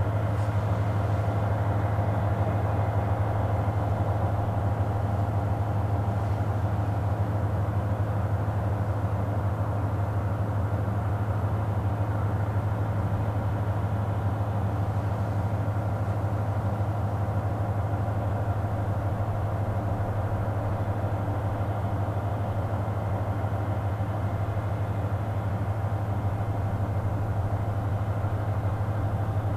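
Diesel train engine idling: a steady, unchanging low hum.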